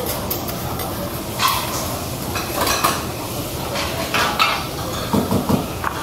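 Metal spatulas and a scraper scraping and clinking on a steel teppanyaki griddle, a few sharp strokes over a steady background noise. A brief low pitched sound comes near the end.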